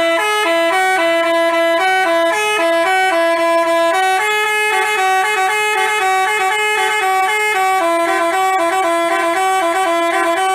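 Telolet basuri multi-tone horn playing a fast tune of short, clear notes, two lines of notes moving together.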